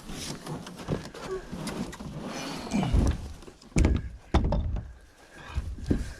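Dull thumps and knocks of a canoe being handled on the ground, with a cluster of heavy thuds about three to four and a half seconds in and another near the end.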